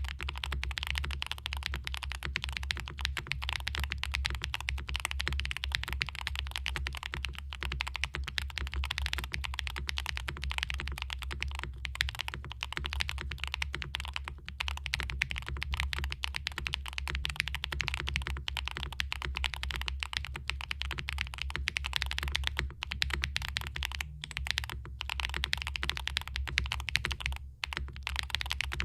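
Continuous fast typing on a Neo75cu mechanical keyboard with Gateron Baby Kangaroo V2 tactile switches, a PP plate and full case foam: a dense, unbroken run of keystrokes, pausing briefly near the end.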